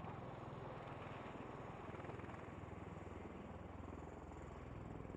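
Faint, steady helicopter noise: a low rumble with a rapid fluttering pulse of rotor and turbine.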